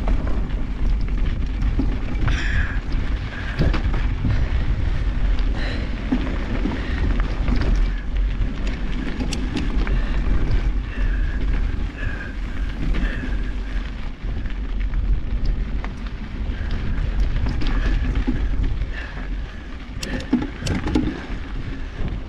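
Wind buffeting a handlebar-mounted GoPro on a mountain bike riding down a rough trail, with the bike rattling and clicking over bumps throughout.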